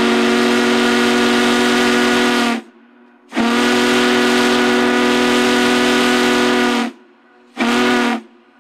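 Union Pacific Big Boy 4014's steam whistle blowing three blasts: two long ones of about three seconds each, then a short one. Each blast is a steady chord of several tones over the hiss of steam.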